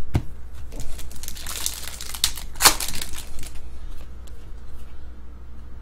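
Foil wrapper of a trading-card pack crinkling and tearing as it is ripped open, with the sharpest, loudest rip a little before halfway through. Small clicks of cards being handled come before and after it.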